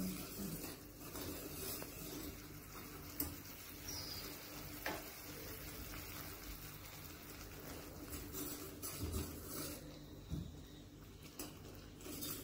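Steel spoon stirring thickened soup in a steel pan, a faint wet scraping with a few light clinks of spoon against the pan.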